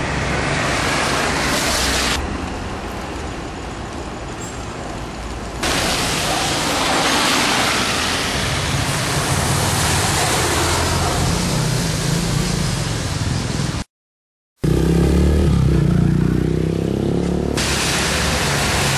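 Steady rushing noise of a swollen, fast-flowing river in flood, heard in several takes, with a short break of total silence about two-thirds of the way through.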